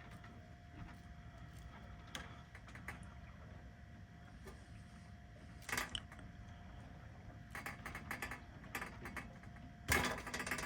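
Hand tools clicking and scraping against small metal and plastic parts inside a bread maker as a glued-in part is worked loose, with a louder clatter about six seconds in, a run of light clicks around eight seconds and the loudest clatter near the end, over a faint steady hum.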